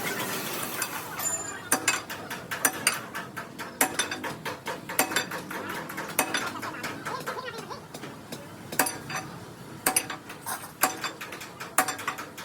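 Irregular sharp metallic clicks and clanks, a few a second, as of tools striking or working on metal.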